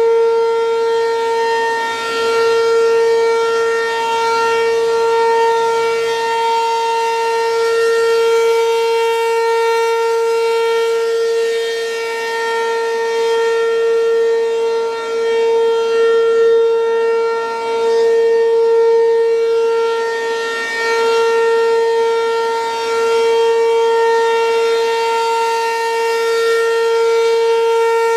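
American Signal RM-127 rotating mechanical warning siren sounding its steady alert signal. It holds one unwavering pitch while its loudness swells and fades every few seconds as the horn turns toward and away.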